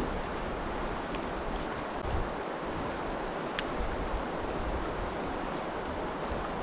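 Creek water rushing steadily through a riffle around a kayak, with a single light click about three and a half seconds in.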